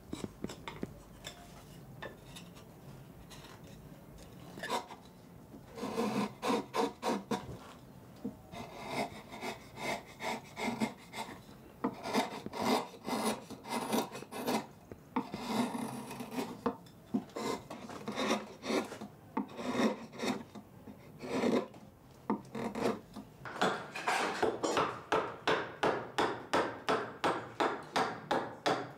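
Wood being shaped with a hand rasp: runs of rhythmic back-and-forth strokes, about two to three a second. The first few seconds are quieter, and the strokes come thickest near the end.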